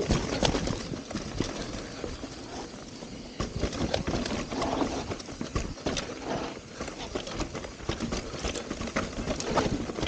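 Mountain bike riding down a rocky dirt trail: tyres crunching over dirt, stones and dry leaves, with irregular clicks and rattles as the bike goes over bumps.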